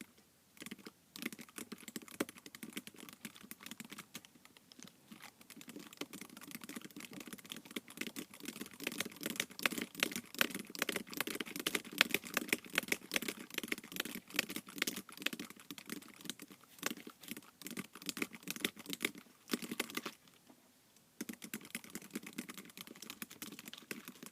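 Rapid typing on an iPad keyboard, a dense run of key clicks with a short pause near the start and another about twenty seconds in.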